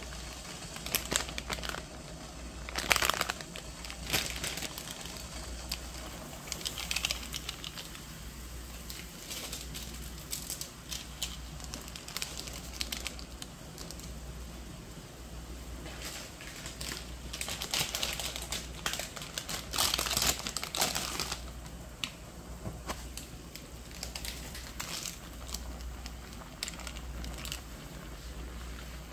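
Plastic instant-ramen packaging and seasoning sachets crinkling and tearing in repeated bursts, loudest around the middle. Underneath, water boils steadily in a pot on a portable gas burner.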